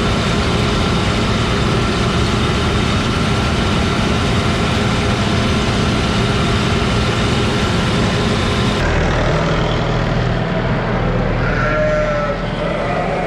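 Heavy farm machinery engine running steadily under load. After an abrupt cut about nine seconds in, a lower hum continues, and animal calls are heard repeatedly near the end.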